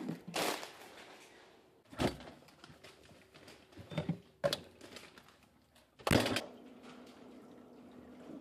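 A handful of separate knocks and clunks of things being handled in a kitchen, about two seconds apart, with a longer rustling burst at the start and the loudest knocks about two and six seconds in.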